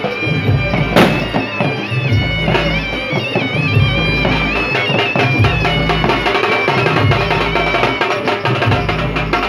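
Traditional wedding band music: a reedy wind instrument plays a high, stepped melody over steady drum beats, with one sharp crack about a second in.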